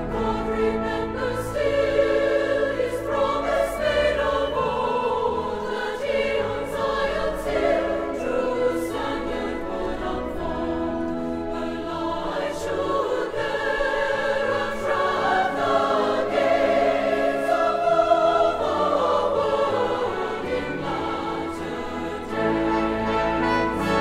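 Background music: a choir singing long, held notes over an orchestral accompaniment.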